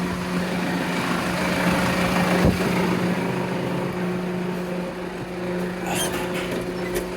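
Tractor engine idling steadily, with a knock about two and a half seconds in and a few sharp clicks near the end.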